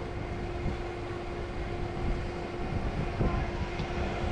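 Steady mechanical hum holding one constant pitch, over an uneven low rumble of wind on the microphone.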